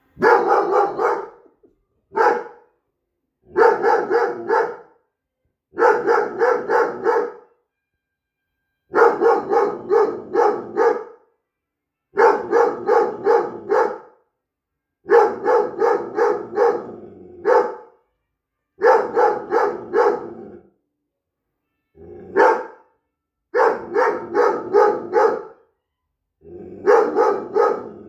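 An 8-month-old Briard puppy's alert barking, in about a dozen quick volleys of three to five barks with short pauses between them.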